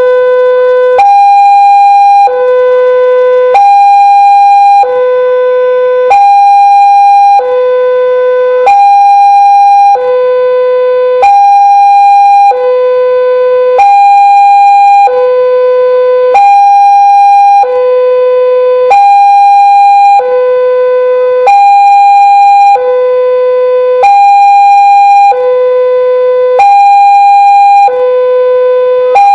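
Indonesian railway level-crossing warning alarm sounding: an electronic high–low two-tone chime, the melodious Daop 8 Surabaya type, alternating evenly about every 1.2 s and repeating steadily.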